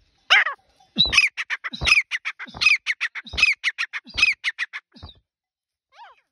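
Grey francolin calling at close range: a loud, harsh call repeated about every three-quarters of a second, with quick short notes run in between. The run stops about five seconds in, and one faint call follows near the end.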